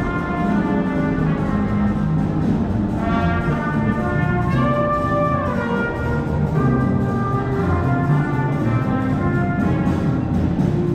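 Brass music playing: several brass instruments holding sustained notes, with a couple of downward slides in pitch a few seconds in.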